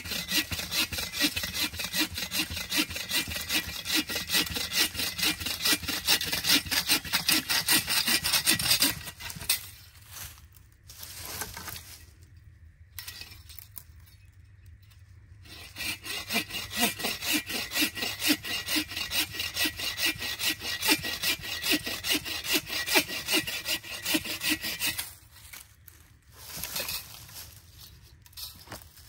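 Hand saw cutting through firewood with quick, steady back-and-forth strokes, in two long bouts separated by a pause of several seconds, then a few short strokes near the end.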